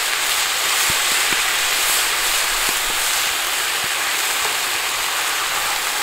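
Spicy chicken dakgalbi with cabbage sizzling on a hot griddle over a strong fire while it is stirred with a wooden spatula: a loud, steady frying hiss with a few light clicks.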